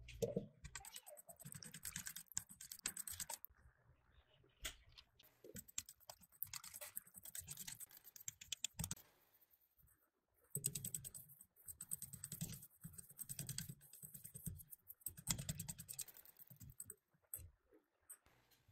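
Small wire whisk beating crepe batter in a stainless steel bowl, its wires ticking rapidly against the metal in three long bursts with short pauses between.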